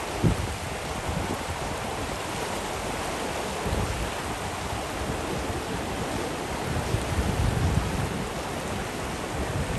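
River rapids rushing steadily over rocks at high water, with low wind rumbles on the microphone now and then.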